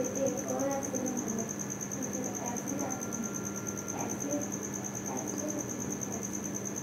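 Leather skiving machine running: a steady hum with a thin high-pitched whine over it, and faint voices in the background.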